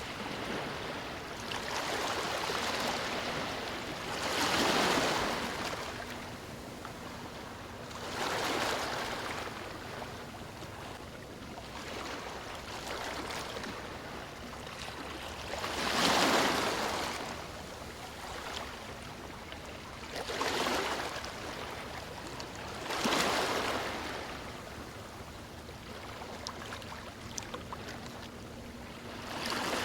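Sea waves breaking and washing up a beach, a louder surge every few seconds that builds and then fades back into a steady wash of surf.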